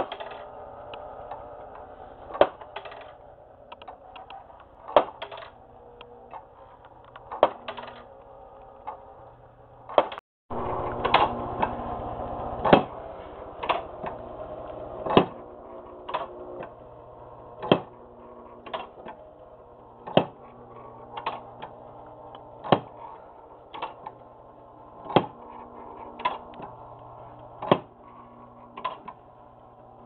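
Handmade wooden model knock-and-drop sawmill running. Its wooden mechanism gives a sharp knock about every two and a half seconds, with lighter clicks in between, over a steady hum.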